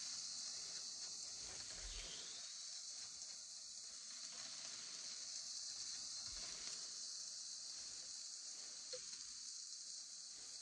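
Chopped onions and mushrooms sizzling gently in a frying pan on a gas hob, a steady hiss, with a light tap or two of a wooden spatula stirring them.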